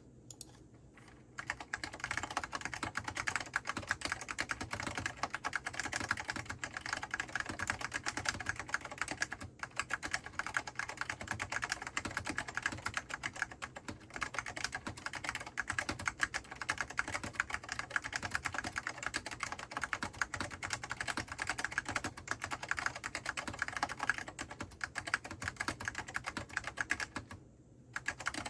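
Continuous typing on an Apple Extended Keyboard with lubricated Alps SKCM Orange tactile switches: a dense run of keystroke clicks with no spring noise. It starts about a second in, pauses briefly a few times, and stops shortly before the end.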